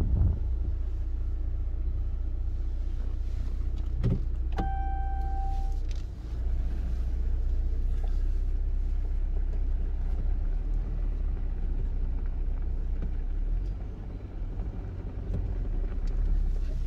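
A Jeep driving slowly, heard from inside the cabin: a steady low engine and road rumble. A short steady beep-like tone sounds about four and a half seconds in and lasts just over a second.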